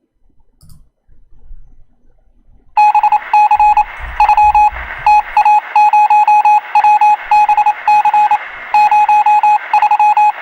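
A bell ringing loudly in rapid, evenly repeated strokes at one steady pitch, like an electric alarm bell. It starts about three seconds in.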